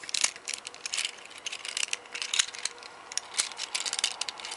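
Plastic parts of a Transformers Deluxe-class Ratchet figure being handled during transformation: a quick, irregular run of small clicks and rattles as panels and joints are moved and fitted.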